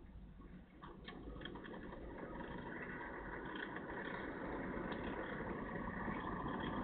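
A road vehicle approaching, its engine and tyre noise growing steadily louder, with a few faint ticks about a second in.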